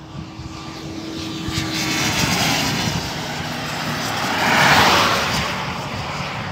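A car passing close by at highway speed: tyre and engine noise swelling over a few seconds, peaking about three-quarters of the way through, then falling away.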